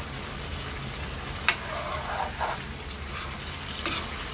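Chicken and potato curry sizzling as it fries in a wok while a spatula stirs it, with a few short scrapes. The spatula knocks sharply against the pan twice, about a second and a half in and again near the end.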